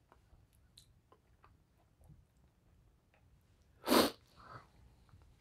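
Faint light clicks, then about four seconds in a short, sharp burst of breath, followed by a fainter one.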